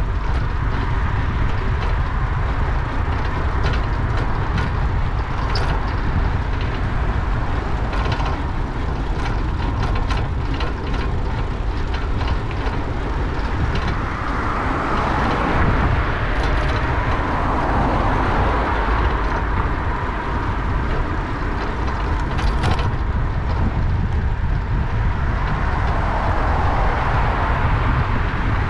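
Riding a bicycle through city traffic, heard from a GoPro on the bike: a steady heavy rumble of wind and road noise, with motor traffic passing and swelling a little past the middle. Light clicks and rattles come and go, mostly in the first half.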